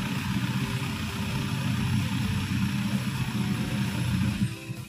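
Boat engine running steadily at low speed, pushing the boat up a shallow mangrove channel; the sound dips briefly near the end.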